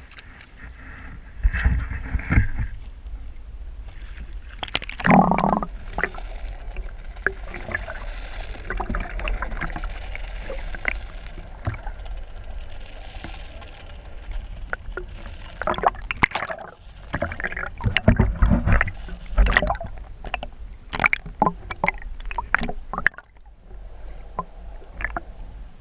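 Water sloshing around a small fishing boat, with a low rumble and scattered sharp knocks and clatters of things aboard, heaviest about two seconds in, around five seconds, and again in a busy stretch past the middle.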